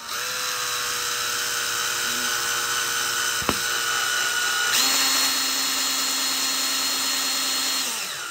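Cordless drill/driver running at low speed, slowly driving a long Phillips-head screw through a steel end plate. Its steady whine shifts in pitch a little under five seconds in and winds down near the end, with one sharp click about three and a half seconds in.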